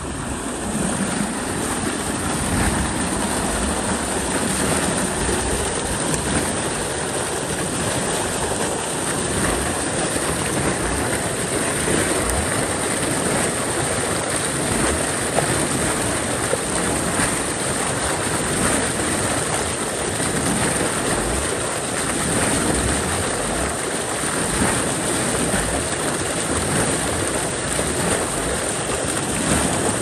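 Lake spillway outflow gushing from a corrugated metal culvert pipe and splashing into a creek: a loud, steady rush of water, with the lake at a very high level.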